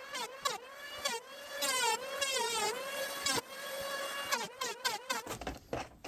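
Handheld electric planer cutting the edges of a maple board, its motor pitch dipping and recovering again and again as it bites into the wood; it stops about five seconds in.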